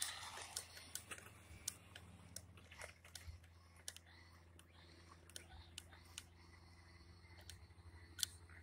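Near silence with scattered faint clicks and ticks over a low hum; the high whine of an electric RC truck driving away fades out in the first second.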